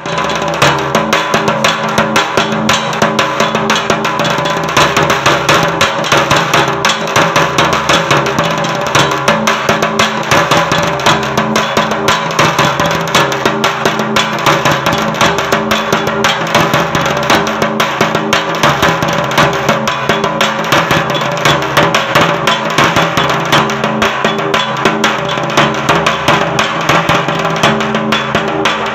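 Nagada drum beaten with thin sticks in a fast, continuous rhythm of strokes.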